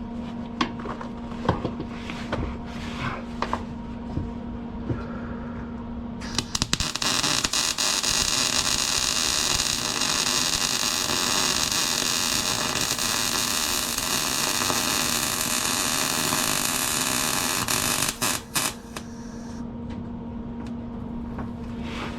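MIG welder arc laying a bead: a steady, crackling sizzle that starts about six seconds in, runs for about twelve seconds and cuts off suddenly. Before and after it there is a steady low hum with a few scattered clicks.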